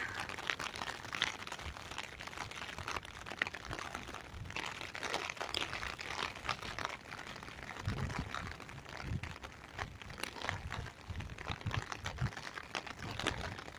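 Rain pattering on an umbrella overhead, a dense, steady crackle of drops, with a few low thumps about eight to eleven seconds in.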